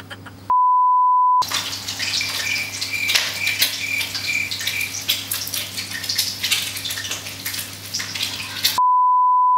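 An edited-in censor bleep at a steady pitch about half a second in and another near the end. Between them, hot oil sizzling and crackling in a wok, with a run of faint high pips a couple of seconds in.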